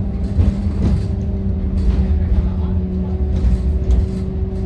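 Inside a moving GVB Amsterdam tram: a steady low rumble of wheels on rail and running gear, with a steady motor hum that comes in about a second in and irregular clicks and rattles.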